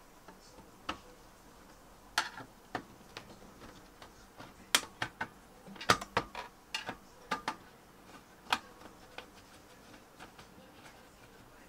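Irregular sharp metallic clicks and taps, thickest and loudest in the middle, from a hand and a screwdriver working at the sheet-metal hard-drive bay of an opened all-in-one PC.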